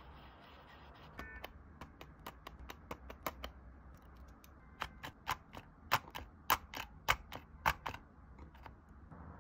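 Hard plastic clicking of a set of small keycap-shaped stamps being handled and knocked together. About two dozen sharp, irregular clicks, loudest between about five and eight seconds in.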